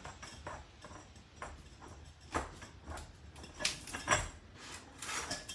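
Minneapolis Moline R tractor's metal oil filter canister shell being worked off its filter base by hand: sliding, scraping handling noise with a few sharp metal knocks and clunks, the loudest about four seconds in.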